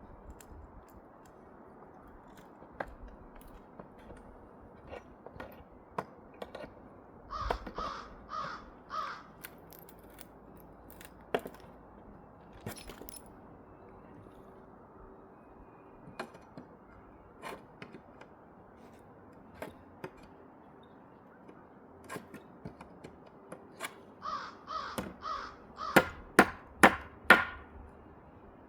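Crow cawing: four caws in a row about seven seconds in, then a longer run of about eight caws near the end. Scattered knocks and clicks of hand-work are heard between the calls.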